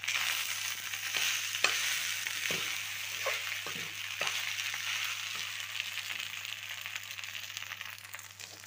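Egg fried rice with vegetables sizzling in a kadai while a spatula stirs it, with several sharp knocks and scrapes of the spatula against the pan in the first half. The sizzle eases off toward the end.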